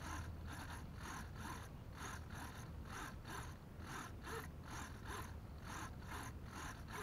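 Several small RC servos whirring in short repeated bursts, about two a second, as their arms swing back and forth on command from a distant transmitter. The servos are still responding, so the receivers are holding the radio link.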